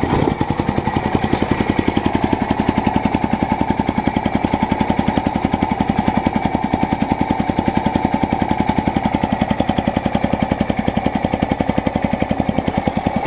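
Petrol lawnmower engine running steadily at low revs, a fast even putter of firing pulses, with the blade not turning.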